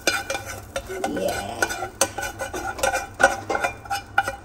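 A metal spoon scraping and knocking against a nonstick saucepan as sautéed onion and tomato are scraped out into a steel mixer jar. It makes a quick, uneven run of scrapes and clinks with a faint metallic ring.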